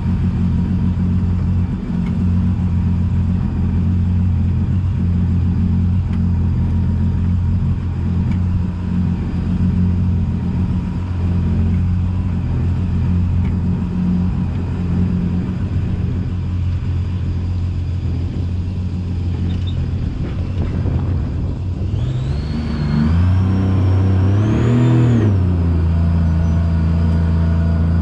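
An engine running steadily at low speed, then revving up and easing back down for a few seconds near the end before settling into a steady run again.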